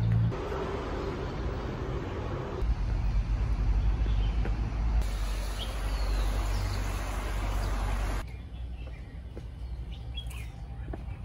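Outdoor ambience in several abruptly cut pieces: steady street and traffic noise with a low rumble, then quieter surroundings after about eight seconds, with a few short bird chirps.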